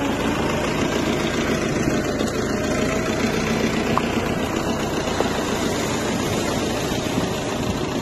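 Old four-wheel farm tractor's diesel engine running steadily with an even, rapid beat as it tows a boat trailer up the beach.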